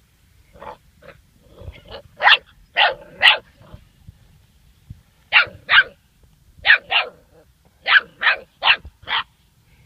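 A German Shorthaired Pointer puppy barking at a dead bird: a run of about fifteen short, high yaps in quick groups of two to four, with a short pause about halfway through.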